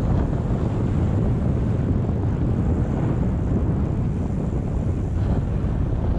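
Wind buffeting a GoPro camera's microphone while cycling along a road: a steady low rumble with no breaks.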